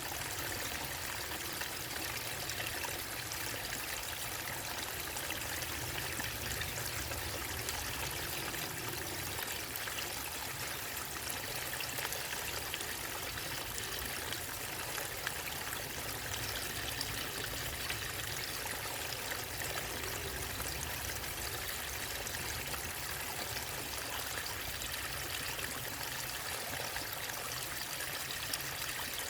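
Steady rush of running water from a small waterfall and stream, an even hiss with a low rumble underneath and no change in level.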